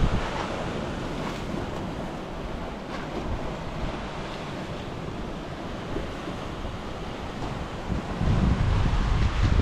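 Sea waves washing on the shore in a steady hiss. About eight seconds in, wind starts buffeting the microphone with a low rumble.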